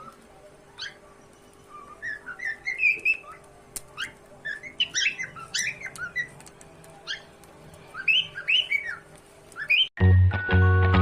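Cockatiel whistling and chirping in short clusters of quick rising and falling notes, with brief pauses between them. Near the end, music cuts in abruptly.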